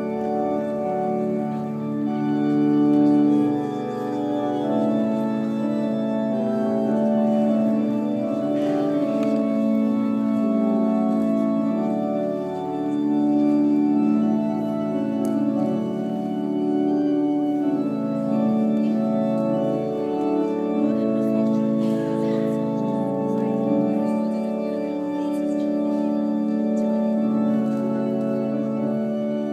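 Organ music: slow, sustained chords held for a second or two each, changing steadily, played for a wedding processional.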